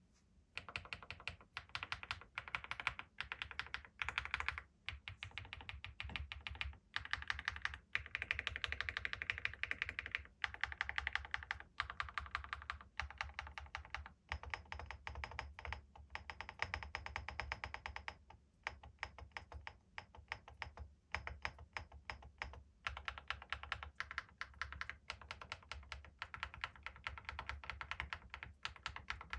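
Fast, continuous typing on an Akko SPR67 aluminium spring-mount keyboard with factory-lubed HMX Cheese switches and Cerakey ceramic keycaps. It makes a dense stream of keystroke clacks, starting about half a second in, with a few brief pauses.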